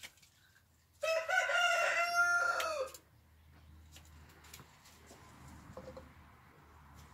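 A rooster crowing once, a call of about two seconds starting about a second in: a few short notes running into a long held one that drops at the end.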